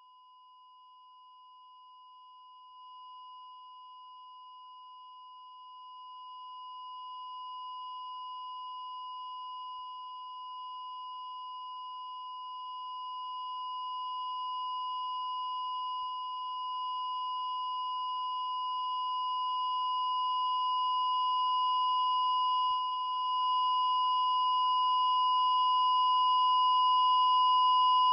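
A single steady high-pitched electronic tone, like a ringing in the ears, growing gradually louder from faint to fairly loud.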